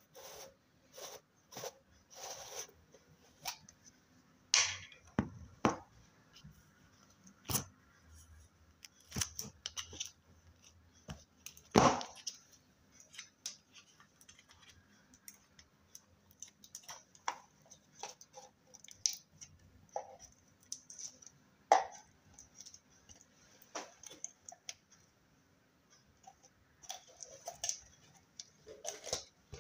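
Slime being worked by hand, making irregular clicks, pops and crackles, some sharper and louder than the rest, the loudest about 12 s and 22 s in.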